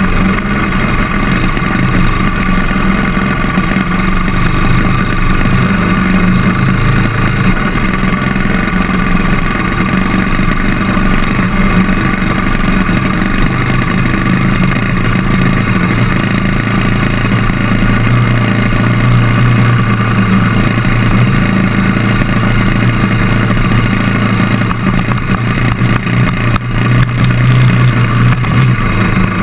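KTM trail motorcycle engine running continuously under way, its pitch shifting a little with the throttle.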